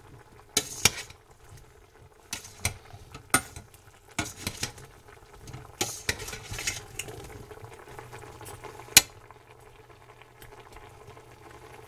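Metal spoon stirring beef chunks, mushrooms and onion in a stainless steel stockpot, with irregular clinks and scrapes against the pot, the sharpest about nine seconds in, over a faint sizzle of the food cooking.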